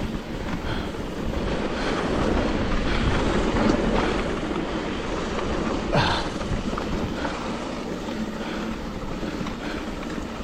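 Wind rushing over the microphone and knobby tyres rolling over a dirt trail on a fast descent on a Trek Rail electric mountain bike, building to its loudest about four seconds in, with one sharp knock about six seconds in.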